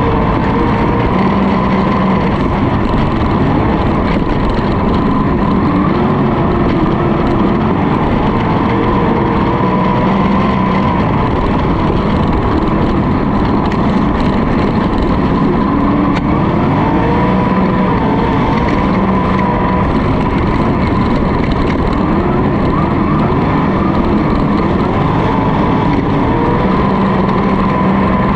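On-board sound of a winged dirt-track sprint car's methanol-burning V8 running hard at racing speed, loud and unbroken. Its pitch keeps rising and falling as the throttle is lifted and reapplied through the turns.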